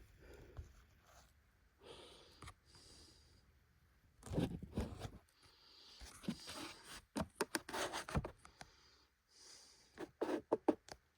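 Faint, irregular handling noises from taking apart an iPhone 4: small clicks, taps and rubbing of phone parts and tools, with a couple of clusters of quick clicks in the second half, and a few breaths.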